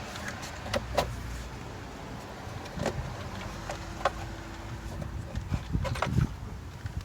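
Scattered sharp clicks and knocks of plastic engine-bay parts being handled as the stock air intake box is prised loose, over a faint low rumble.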